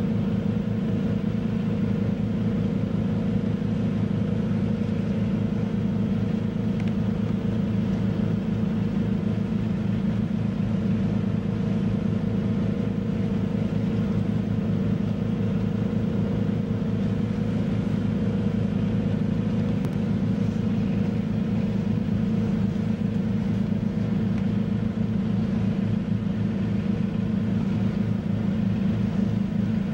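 Engine running at a constant speed: a steady low hum that does not change.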